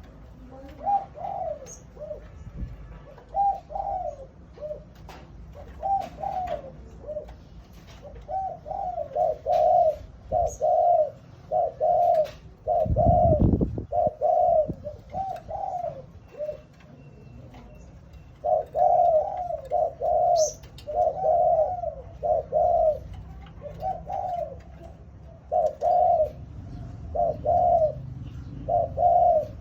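Doves cooing: short coos repeated in runs, with pauses between the groups. There is a low thump about 13 seconds in.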